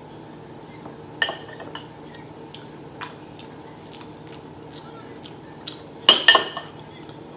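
Metal fork clinking against a glass dish as food is picked up: a few short, sharp clinks, the loudest two close together about six seconds in.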